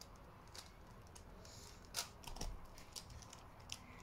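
Faint, irregular plastic clicks and clacks of a puzzle cube being twisted by hand, with one louder clack about two seconds in.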